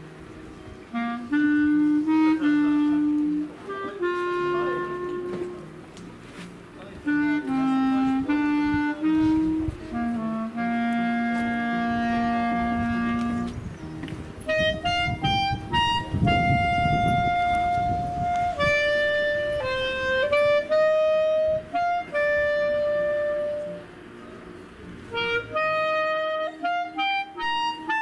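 Solo clarinet playing a slow tune one held note at a time. It stays in its low register at first and moves up to higher notes about halfway through.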